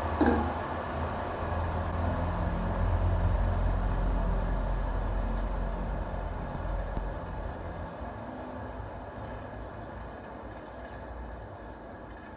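Fan-cooled electric motor with a low hum. A switch clicks just after the start, then the hum and fan noise fade gradually as the motor coasts down.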